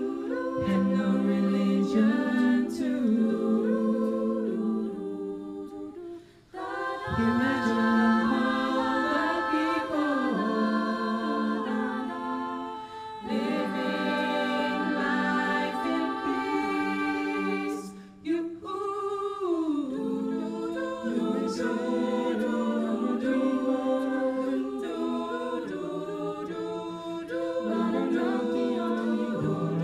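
A small vocal group singing a cappella in several-part harmony, in phrases that break off briefly about six seconds in and again around eighteen seconds.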